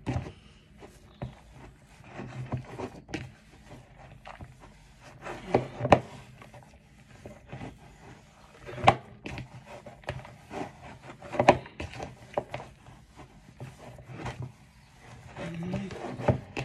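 Hands mixing and kneading glutinous rice flour and water into a dough in a plastic bowl, with soft squishing and rubbing. Several sharp knocks of the hand against the bowl come through, the loudest about 6, 9 and 11.5 seconds in.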